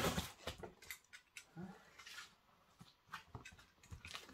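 Cardboard shipping box being handled: a string of faint, irregular knocks, clicks and rubbing sounds.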